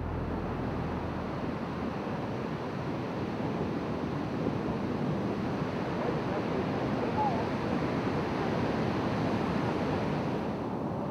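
Ocean surf breaking on a beach: a steady rush of waves.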